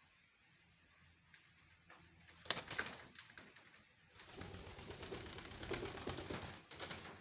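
Poultry making noise: a short loud burst about two and a half seconds in, then a longer spell of busy, rustling bird sounds from about four seconds until near the end.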